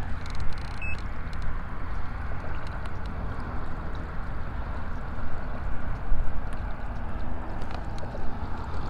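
Water rushing and gurgling along the hull of a moving kayak as its bow cuts a wake, over a steady low rumble.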